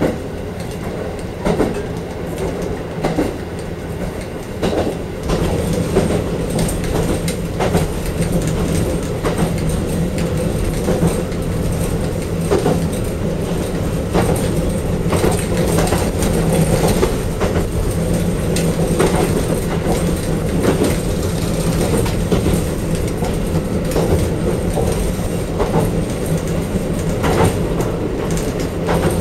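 KiHa 40 diesel railcar under way, heard from inside the car: a steady low drone of the diesel engine and running gear, with wheels knocking over rail joints every second or two.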